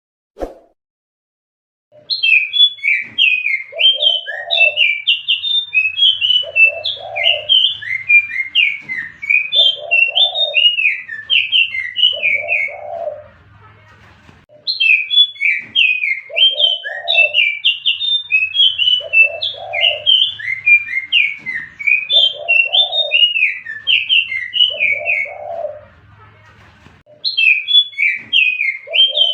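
Recorded song of the jongkangan biru bird played as a lure: rapid, high chattering chirps with lower notes about every two seconds. It comes as a repeating phrase of about twelve seconds, broken by short pauses about 14 and 27 seconds in, with a single click just before the first phrase.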